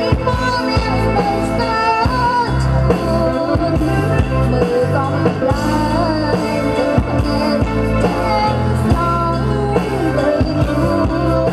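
A young woman singing a Khmer pop song into a microphone, backed by a live band with electric guitar and keyboard over a steady beat.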